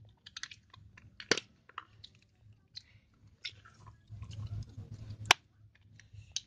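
Homemade slime being squeezed and pressed by hand, giving irregular wet clicks and small crackling pops, with two louder clicks, one about a second in and one near the end.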